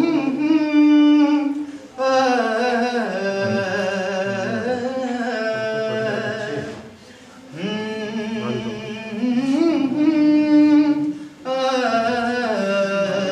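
A man singing solo and unaccompanied, in long held notes that bend in pitch, with short breaks between phrases.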